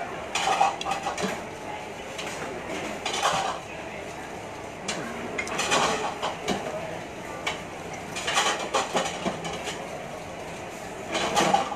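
Chopsticks clicking and scraping against a bowl of laksa in short clusters of clatter every two to three seconds, over a steady murmur of background noise.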